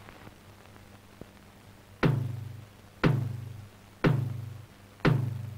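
Film background score: a low drum hit once a second, four times, starting about two seconds in, each hit ringing out and fading before the next.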